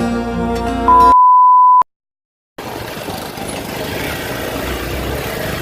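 Background music ends in a loud, steady electronic beep lasting about a second, then a moment of dead silence. After that comes the steady rumble of a motorcycle ride on a rough dirt road, engine and wind noise on the onboard microphone.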